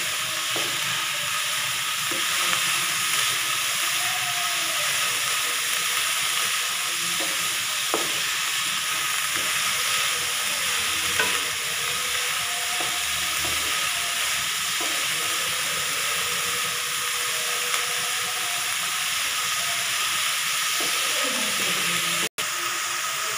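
Shredded vegetables sizzling in hot oil in an aluminium kadhai as a wooden spatula stirs and tosses them, with a few light clicks of the spatula against the pan. The sound cuts out for an instant about a second before the end.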